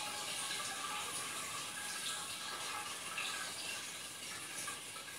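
Steady sound of running water, an even rush without clear single strokes.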